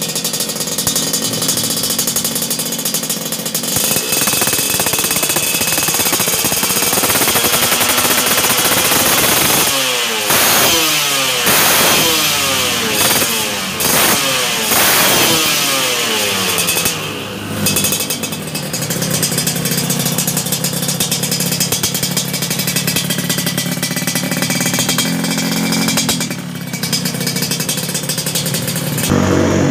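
Yamaha RX-King two-stroke single-cylinder engine running through a galvanized 'kolong macan' racing exhaust, blipped through several quick revs in the middle and then settling back to a steady idle.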